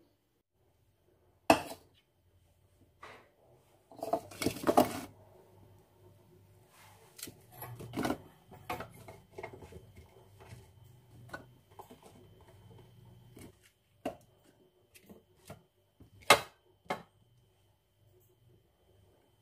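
Ingredients being handled and dropped into a glass food-chopper bowl on a kitchen counter: scattered knocks, clicks and clatters, with a dense cluster of clatter about four to five seconds in and sharp single knocks near the start and about sixteen seconds in.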